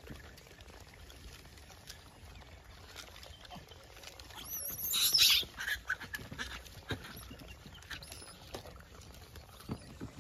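A troop of gray langurs feeding on apples: scattered soft clicks and rustles of fruit being handled and chewed. About five seconds in comes a short, loud, high-pitched shrill call that wavers in pitch.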